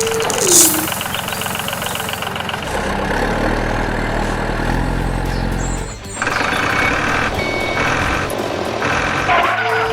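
Construction-vehicle engine running, mixed with background music; the sound drops out briefly about six seconds in.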